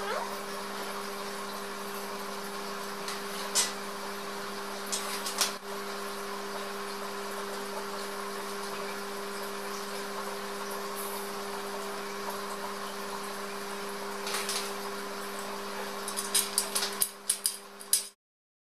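Light metallic clicks and taps of a hex key turning bolts in a white steel shelf frame during assembly: a few scattered ones, then a quick run of them near the end. A steady low hum runs underneath.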